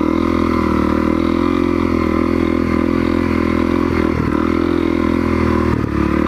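Honda CRF250L's single-cylinder four-stroke engine running at fairly steady revs on part throttle, crawling through slippery mud. The note wavers slightly, with brief dips in revs about four and six seconds in.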